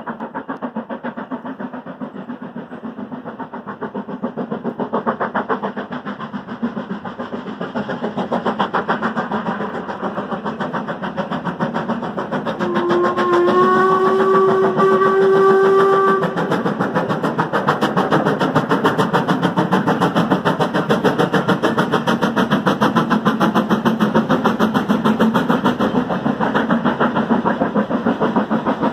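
Stanier Class 5 two-cylinder 4-6-0 steam locomotive working hard uphill, a fast, even beat of exhaust chuffs. About thirteen seconds in, its whistle sounds one long, steady note lasting about three seconds.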